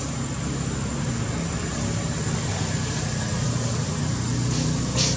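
Steady low engine hum, like a motor vehicle running nearby, with a brief sharp crackle about five seconds in.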